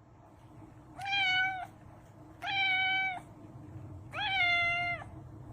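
Domestic cat meowing three times, about a second and a half apart. Each meow is short and holds a steady pitch after a quick rise at its start.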